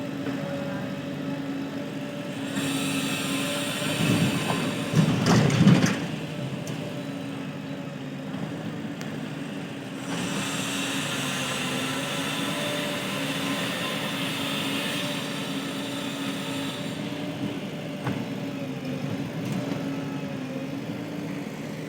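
Heavy-machinery diesel engine running steadily, with a louder, rough burst of noise about four to six seconds in and a rise in level at about ten seconds.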